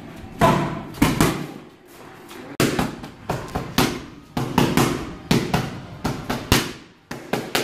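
Boxing gloves striking focus pads in quick combinations: a dozen or more sharp smacks, with a brief lull about two seconds in and again near the end.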